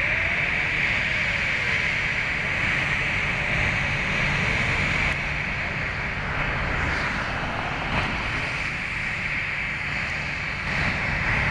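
Jet aircraft engines running, a steady rushing noise over a low rumble that eases a little midway and swells again near the end.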